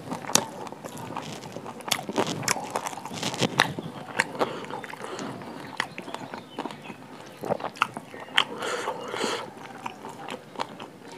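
A person eating close to the microphone: irregular bites, chewing and wet mouth clicks.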